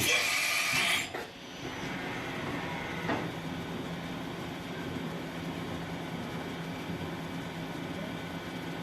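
1999 Daewoo DMV500 CNC vertical mill running: a steady machine hum with a few steady low tones, after a loud rushing noise in the first second.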